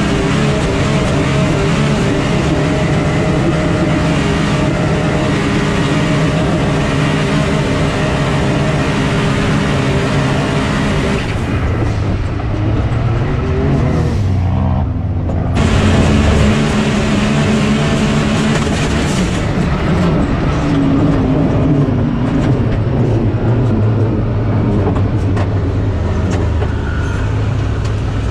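Can-Am Maverick X3 Max side-by-side's turbocharged three-cylinder engine running hard, heard from inside the open cab. Around twelve seconds in the sound thins out for a few seconds, as if off the throttle, then it comes back strong and steady.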